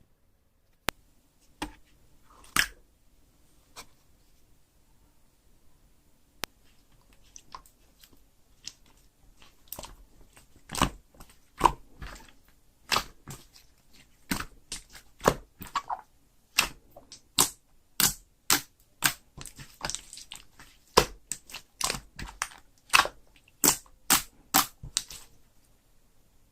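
Slime being pressed, folded and stretched by hand, giving sharp wet pops and clicks, a few at first and then one or two a second from about ten seconds in.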